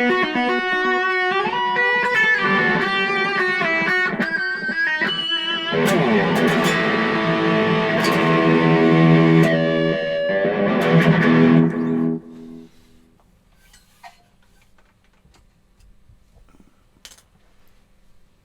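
Electric guitar played through a Boss Katana Mini practice amplifier: quick single-note lines, then fuller ringing chords. The playing stops about twelve seconds in, leaving only a few faint clicks.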